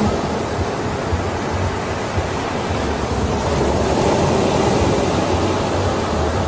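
Ocean surf washing in with a steady, even rush.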